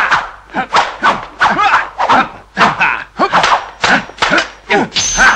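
Kung fu fight sound effects: a rapid run of punch and kick impacts, about two a second, each mixed with a short shouted yell from the fighters.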